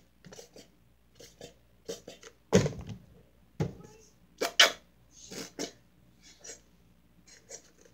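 A nearly empty squeeze bottle of lotion, held upside down and squeezed, sputters air and lotion out of its nozzle in short irregular spurts, a few of them loud.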